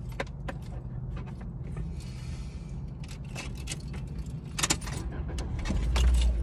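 Small clicks and taps of a lip gloss tube and applicator wand being handled, with a sharper pair of clicks a little before the last second and a half and a low bump near the end, over the steady low hum of a car interior.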